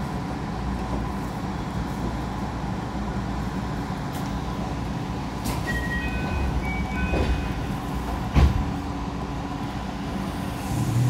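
Inside a train carriage as it comes to a stop at a station platform, with a steady low rumble. A few short, high electronic tone notes sound about six seconds in, and a single sharp knock follows about two seconds later.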